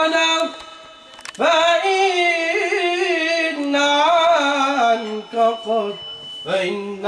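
A man singing an Islamic nasheed in Arabic as a solo voice, drawing out long held notes with wavering melismatic ornaments. He breaks off for a breath about half a second in and comes back in about a second later.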